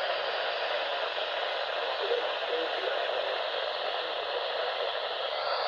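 Radio receiver static: a steady, even hiss with no voice or tones, cutting off suddenly at the very end.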